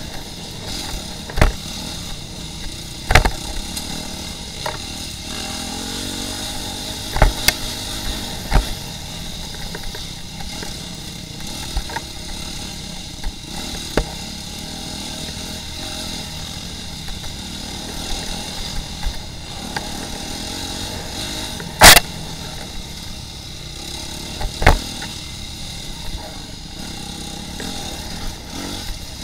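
Off-road dirt bike engine running steadily while the bike is ridden along a rough wooded trail. Several sharp knocks break through it, the loudest about 22 seconds in.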